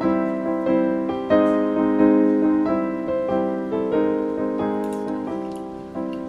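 Background music: a piano melody, single notes struck about every two-thirds of a second, each ringing and fading.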